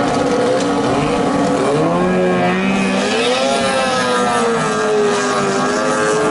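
15 hp outboard motor of a small racing boat running flat out as the boat passes, its whine climbing in pitch and then slowly falling away.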